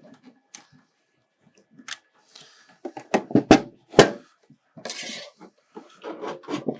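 Clicks, clinks and knocks of hardware being handled: a duplex LC fibre patch cable being plugged into the ports of small metal BarnColor fibre units as the units are moved about. A few sharp knocks about three to four seconds in are the loudest, with a brief rustle just after.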